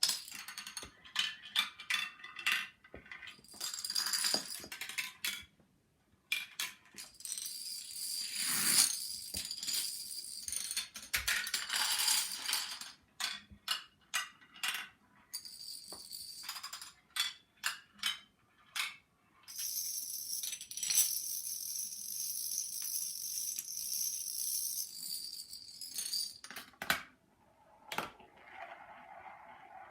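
Dominoes toppling in a long chain reaction: a fast clicking clatter that comes in waves, with a few short lulls between runs.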